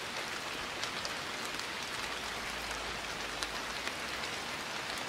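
Steady rain falling: an even hiss with scattered ticks of single drops striking.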